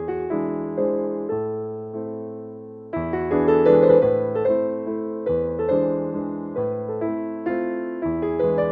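Slow, gentle electric piano melody: soft chords and single notes, each fading away before the next.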